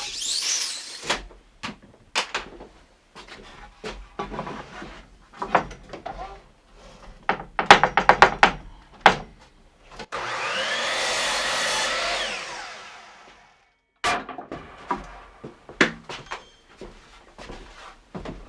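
Lumber and tools being handled: a run of wooden knocks and clatters, busiest just before the middle. Past the middle a power tool runs steadily for about three and a half seconds, then stops.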